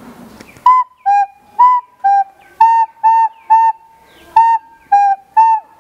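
A child learner plays a simple tune on a plastic soprano recorder, starting about a second in. The notes are short and separately tongued, and they mostly alternate between two pitches.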